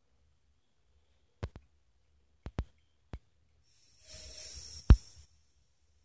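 A few sharp clicks of metal fittings at an air compressor's regulator and hose, then compressed air hissing out for about a second and a half, with a loud click near the end of the hiss.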